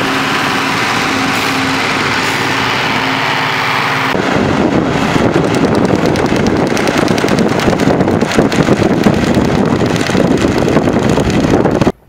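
Ursus tractor engine running steadily as it pulls a manure spreader. About four seconds in, the sound turns into a denser, rougher noise as the spreader works past. It stops abruptly near the end.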